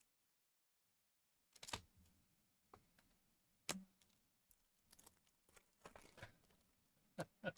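Faint handling of trading cards and packs: a few sharp clicks and taps with some light rustling in between.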